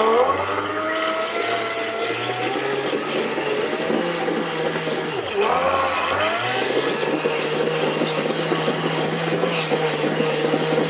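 Brushed electric RC car motor running fully submerged in a cup of water to break it in and flush out dirt. Its steady whine dips and climbs back twice, at the start and about five seconds in, then holds steady.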